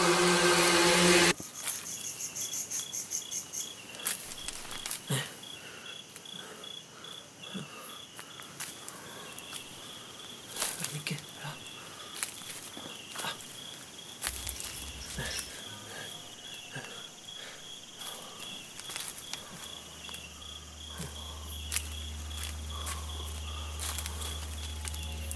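Crickets chirping in a steady, even pulse at night, with scattered sharp clicks and rustles of footsteps on leaf litter. A short loud musical sound cuts off about a second and a half in, and a low steady hum comes in near the end.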